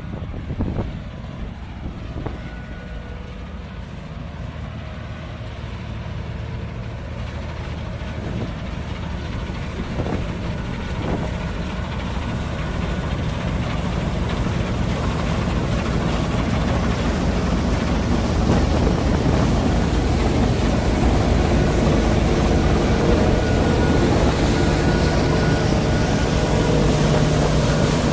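Diesel engine of harvest machinery (combine harvester or tractor) running steadily and growing louder over the first two-thirds, then holding level as it comes close. A few sharp clicks near the start and midway.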